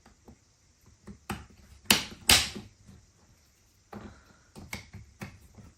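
Sharp knocks and clicks of a hard plastic suitcase wheel and hub being handled and tested after repair. Two loud knocks come about two seconds in, then a few lighter clicks and taps.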